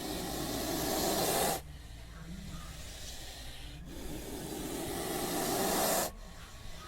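Snake hissing sound effect: two long, rasping hisses, each building in loudness and then cutting off suddenly, the first about a second and a half in and the second about six seconds in.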